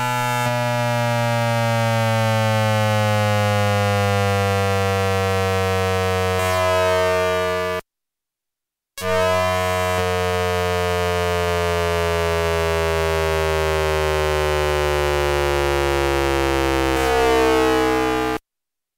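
VVVF inverter noise of a Hanshin 5500 series train, picked up by a radio in the motor car and overlaid with added tones at the inverter frequency. It is a stack of electronic tones falling slowly in pitch as the motors slow, typical of the train decelerating. The sound cuts out abruptly about eight seconds in, returns a second later, and cuts off again near the end.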